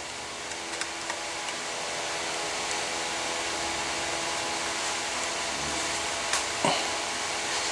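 Steady whirring hiss with a faint hum under it, growing slightly louder, with a few faint clicks as an Allen wrench turns a rifle stock screw.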